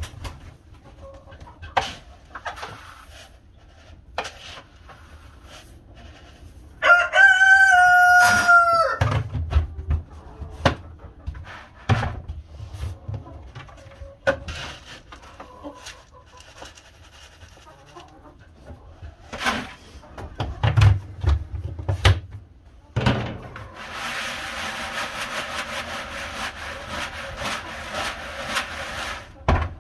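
A rooster crows once, a single drawn-out call of about two seconds, roughly seven seconds in. Scattered knocks and clanks sound around it, and a steady rattling hiss runs through the last five seconds or so.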